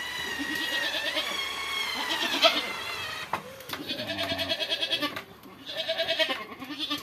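Goats bleating again and again in a trembling call. For about the first two and a half seconds, a cordless drill's motor whines and shifts in pitch as it drives a screw into wood.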